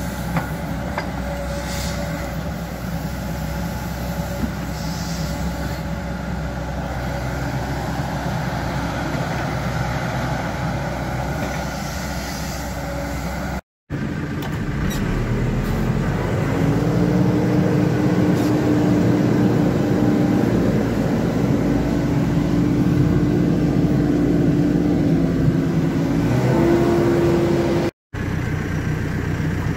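JCB hydraulic excavator's diesel engine running as it digs a trench. After about 14 seconds it gives way to a louder heavy machine's diesel engine heard from inside the cab while driving, with a steady hum that steps up in pitch near the end.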